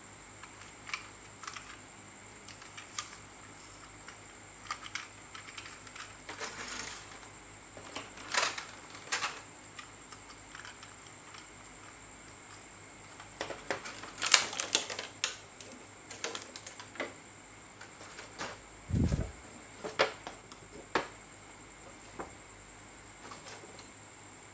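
Irregular clicks and taps of a toy bus and its packaging being handled, with busier flurries about a third of the way in and just past the middle, and one dull thump about three-quarters through. A faint steady high whine runs underneath.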